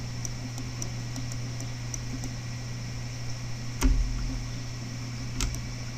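A steady low hum and even room hiss, broken by two sharp clicks with a low thump, the louder about four seconds in and a smaller one about a second and a half later.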